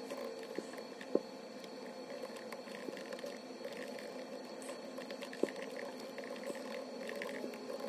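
Typing on a MacBook Pro laptop keyboard: a continuous run of quick, soft key clicks, with two sharper, louder taps, one about a second in and one midway.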